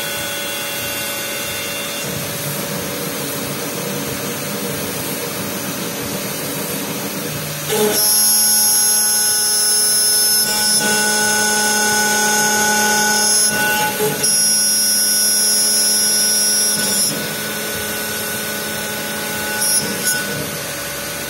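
CNC router spindle running, its cutter milling a carbon-fibre forend turning on a rotary axis. A steady machine noise with a high whine grows louder about a third of the way in, dips briefly, then drops back to the quieter level after about seventeen seconds.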